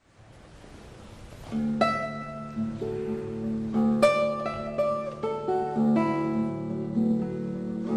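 Background music: plucked acoustic-guitar notes picking out a melody over a low held bass note, coming in about a second and a half in after a faint swell.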